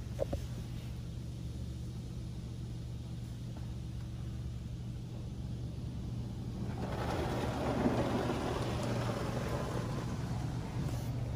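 Inside a car in a Laserwash G5 touchless car wash: a steady low hum, joined about seven seconds in by the louder hiss of high-pressure water spray hitting the roof and sunroof.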